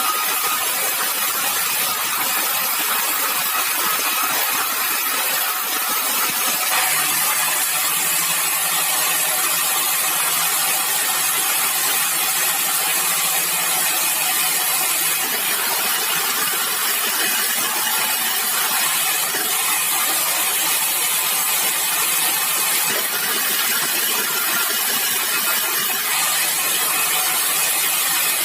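Sawmill machinery running: a steady, loud mechanical noise, with a low hum that comes in about seven seconds in.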